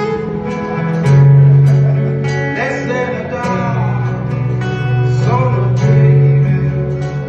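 Music: an acoustic guitar strumming chords about twice a second over a steady bass, with a wavering melody line coming in about two and a half seconds in and again near the five-second mark.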